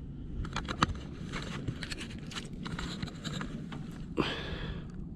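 Scattered clicks and rustling from handling a catfish while it is weighed on a scale, with a longer rasping noise about four seconds in.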